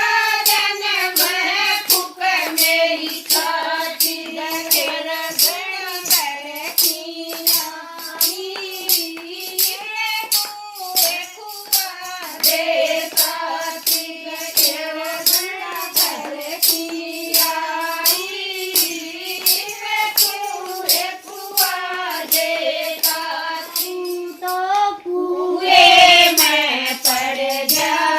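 A Haryanvi folk bhajan sung to a steady percussion beat of sharp, jingling strokes. Near the end the singing briefly drops, then comes back louder.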